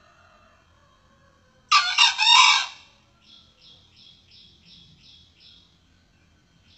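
A male junglefowl crows once, a loud, hoarse call of about a second. It is followed by a fainter run of about eight short, high, evenly spaced chirps from a smaller bird.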